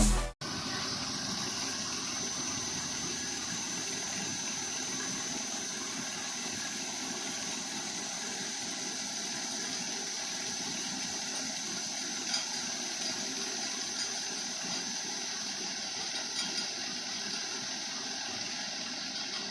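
A machine running steadily, with a thin high whine held throughout and a few light ticks later on.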